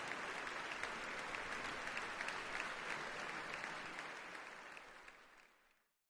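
Audience applauding: many hands clapping together in a dense, even stream. It fades out over the last two seconds or so.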